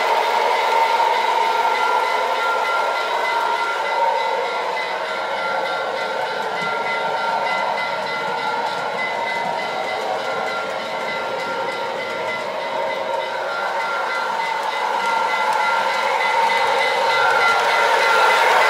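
Lionel Santa Fe model train, a diesel locomotive pulling passenger cars, running on its track: a steady rolling clatter with a thin high whine. It grows quieter in the middle as the train crosses the far side of the layout, then louder again near the end as it comes back past.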